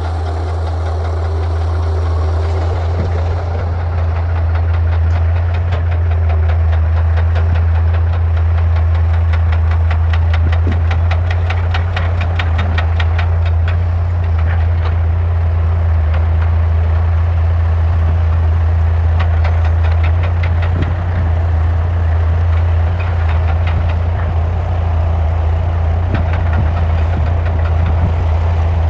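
Komatsu D155A crawler bulldozer's diesel engine running steadily with a loud, deep drone, with rapid sharp clicks and clanks through the middle stretch.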